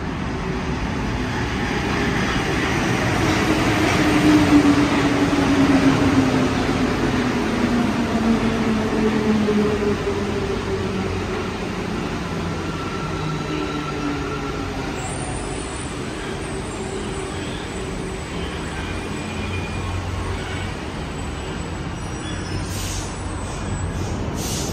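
Alstom NS-04 metro train pulling into the station and braking to a stop, its traction whine falling steadily in pitch as it slows, loudest a few seconds in as the cars pass. Near the end the doors start to open with a few sharp clicks.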